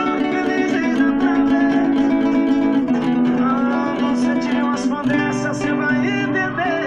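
Acoustic guitar played along to a recorded song, with sustained notes and occasional sliding pitches.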